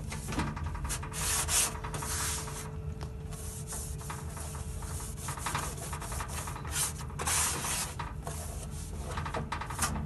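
Scourer side of a kitchen sponge scrubbing the inside of a microwave door, a dry rasping rub in repeated back-and-forth strokes, some swipes louder than others.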